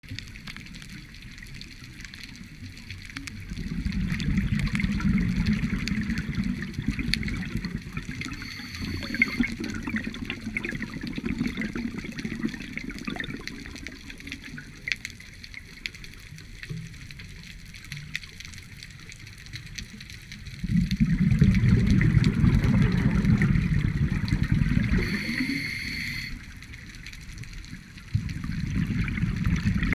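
Scuba diver breathing through a regulator, heard underwater: exhaled bubbles gurgle and rumble in long stretches, with quieter hissing spells between breaths.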